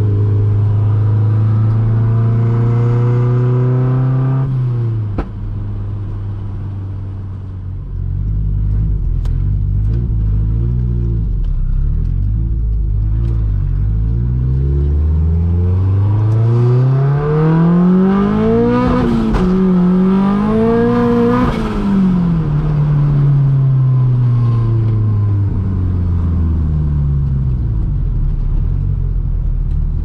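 Turbocharged 1.8-litre four-cylinder engine of a Mk2 Golf GTI driving. The note climbs and drops off about five seconds in. After a low rumble the revs rise twice to a peak, then fall away slowly.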